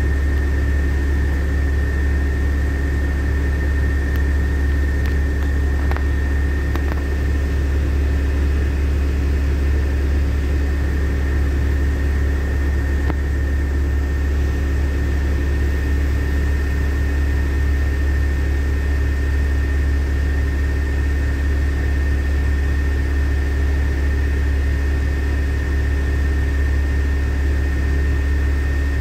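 LiAZ-5292.65 city bus's engine idling, a steady low hum heard from inside the passenger cabin, with a thin steady high whine over it.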